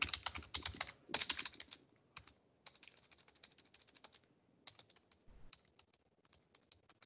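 Typing on a computer keyboard: quick runs of key clicks in the first two seconds, then scattered single keystrokes.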